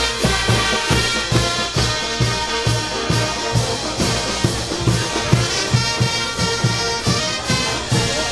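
Brass band playing, trumpets and trombones over a steady drum beat.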